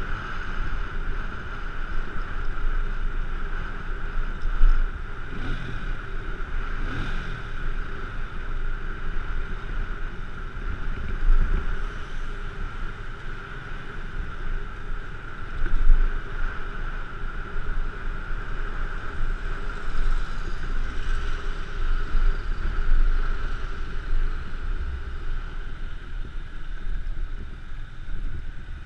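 G-max 150 motorcycle riding along, its engine running steadily under wind noise on a helmet-mounted camera's microphone. The engine note rises briefly twice about six seconds in, and there are a few short louder gusts.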